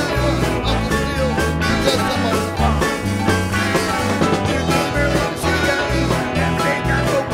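A small band playing an up-tempo instrumental groove: drum kit, electric bass walking a steady line, hollow-body electric guitar and keyboard.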